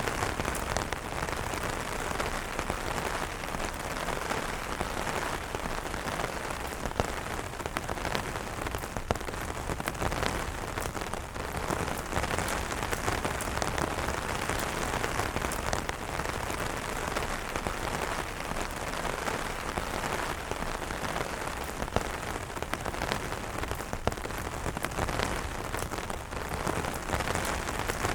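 Steady rain falling on umbrellas: a constant hiss of rain with many separate drop hits ticking on the fabric.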